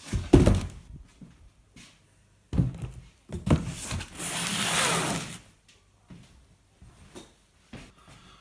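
A cardboard delivery box being handled and opened: a few thumps, and about a second of rustling packaging near the middle.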